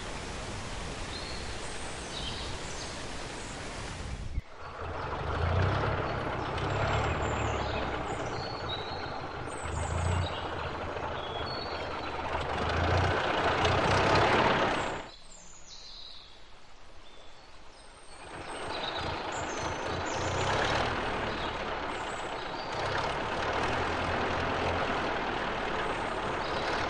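Rushing waterfall noise for the first four seconds, then an early car engine running with a low rumble that grows louder and cuts off abruptly about fifteen seconds in. After a quieter stretch the engine sound returns, with birds chirping.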